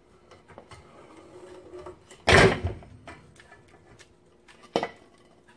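A dull thud, with a short splat, as a plateful of mashed banana drops off the plate into a stand mixer's steel bowl about two seconds in, with faint spatula scraping before it and a single sharp click near the end.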